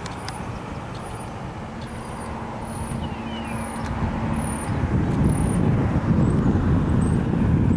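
Outdoor background noise: a low, rough rumble that swells about halfway through, with faint high chirps repeating every half-second or so.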